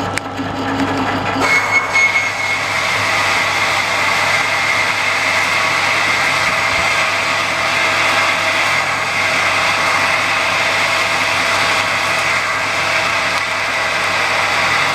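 Metal lathe running at 280 RPM while a 32 mm spade drill bores straight into a 1045 steel workpiece with no pilot hole. The drill bites about a second and a half in, and from then on it cuts steadily with a high ring over the machine's running noise.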